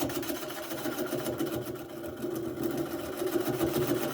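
Wood lathe turning a tamarack bowl blank at slow speed, with a hand-held turning tool cutting into the spinning wood: a steady motor hum under a rapid, rhythmic ticking chatter.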